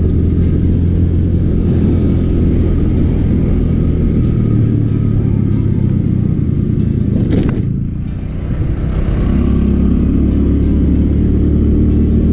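Motor scooter being ridden along at speed: its small engine runs steadily under loud wind and road noise. It eases off briefly about eight seconds in, then picks up again.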